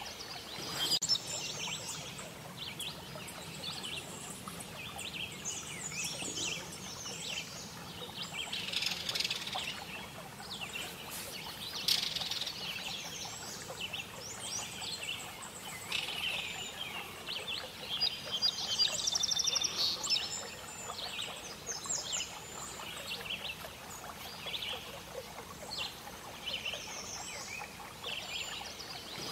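Many small birds singing and chirping together: a dense chorus of short, high calls and whistles over a faint steady hiss, with a rapid trill about two-thirds of the way in.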